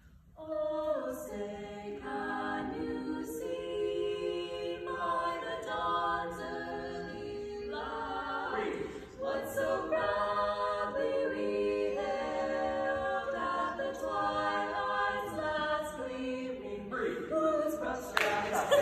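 Female barbershop quartet singing a cappella in close four-part harmony: held chords that change every second or so, with one short break about halfway through. Near the end the singing stops and gives way to a burst of noise.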